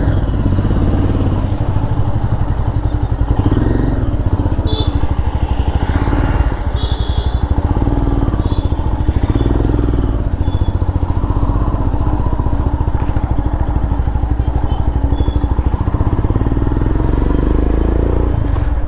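Motorcycle engine running while riding, with a steady, even exhaust beat.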